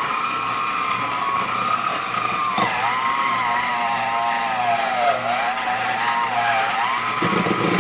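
Electric hand mixer running on low, its beaters shredding cooked chicken breasts in a glass bowl. The motor gives a steady whine that wavers and dips in pitch now and then, with a single click a little over halfway through the first third.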